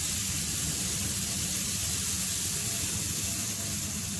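Steady hiss of pancake batter sizzling in a hot nonstick pan as fresh batter is spooned in, over a low steady hum.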